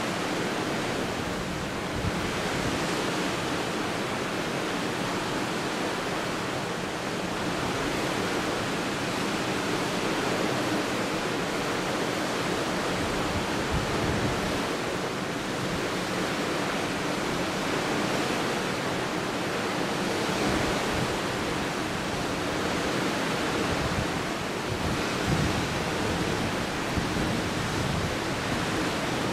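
Steady rush of the sea and wind, with now and then a brief low buffet of wind on the microphone and a faint steady hum underneath.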